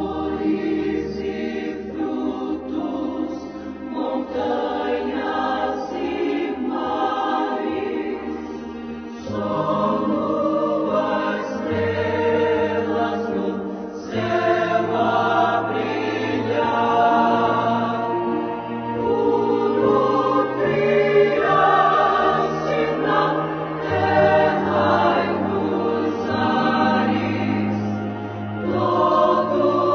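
Choir singing Christian gospel music in long held chords, the low notes changing every few seconds.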